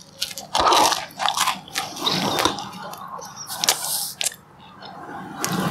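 Biting into and chewing a slice of brown bread spread with strawberry jam. A loud crunchy bite comes about half a second in, followed by smaller crackly bites and chewing.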